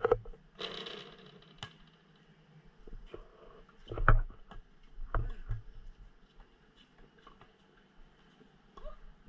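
A basketball thudding on a concrete court a few times: a sharp hit at the very start, another about four seconds in and a couple more just after. A brief hiss follows the first hit.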